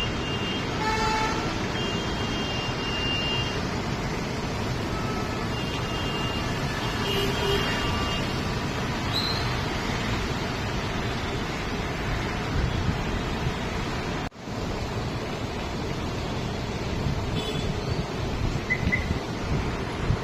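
Steady street traffic noise with vehicle horns honking, two stretches of horn blasts in the first half. The sound drops out briefly at a cut about 14 seconds in, then the traffic noise resumes.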